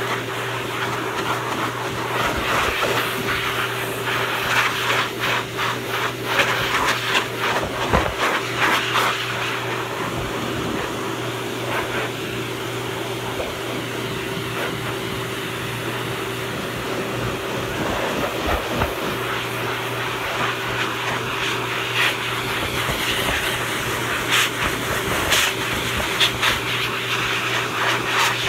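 Pet-grooming blow dryer running steadily: a constant rush of air with a steady hum under it. There are spells of crackling in the first third and again near the end.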